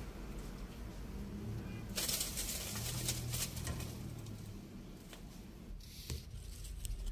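Dry leaf litter rustling and crackling as a California kingsnake seizes a mouse and coils around it. A burst of rustling starts about two seconds in and lasts a couple of seconds, and a few short crackles follow near the end.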